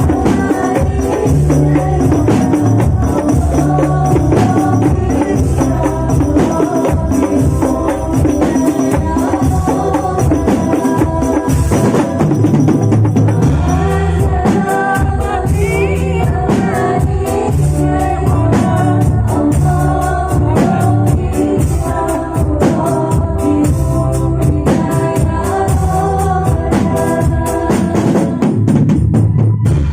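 Rebana group music: frame drums and tambourine jingles keep a steady, dense beat under a sustained melody line.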